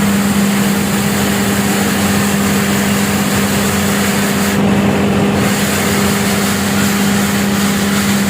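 Road sweeper truck running its brush and suction fan while vacuuming leaves off the road: a loud, steady drone with a constant hiss of air and debris being sucked in.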